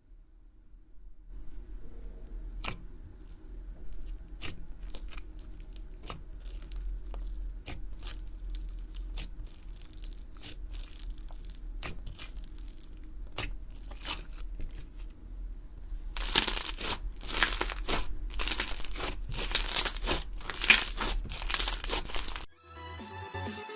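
Slime being pressed and stretched by hand, giving off small irregular clicking pops. Near the end come about seven louder, denser bursts of popping, roughly one a second. Electronic music starts just before the end.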